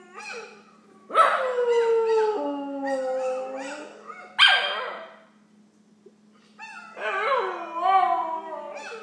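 West Highland terrier mix howling along with a dog's howls played from a laptop: long wavering howls that slide down in pitch, in two spells with a pause of about a second and a half between them.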